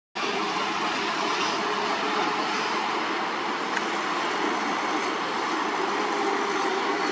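Loaded multi-axle dump truck driving past on a dirt haul road: a steady rumble of diesel engine and tyres on gravel, with a thin steady whine joining near the end.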